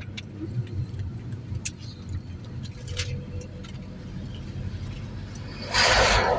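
Steady low rumble of a vehicle on the move, heard from inside the cabin, with a few faint clicks and rattles. A short loud rush of noise comes near the end.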